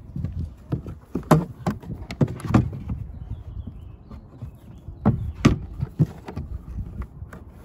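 Several scattered knocks and clunks, two pairs close together in the first few seconds and another pair about five seconds in, over a steady low rumble.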